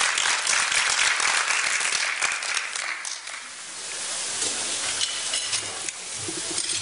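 Audience applauding, dying away about three seconds in and leaving quieter room noise.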